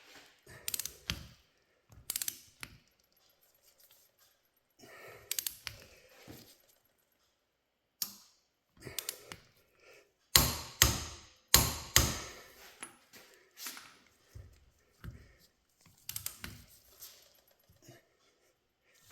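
Wrenches and metal parts clinking and knocking on a John Deere 4020 hydraulic pump during reassembly. Irregular sharp clinks, with a run of louder knocks about halfway through.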